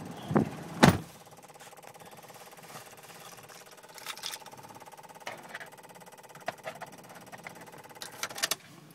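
Jeep Grand Cherokee WJ electrical system clicking and buzzing rapidly and steadily, with scattered louder clicks, after the key is turned; the engine doesn't start. It is the sign of an electrical fault that keeps the clicking going even with the key removed. Two thumps come first, and the buzzing stops suddenly near the end.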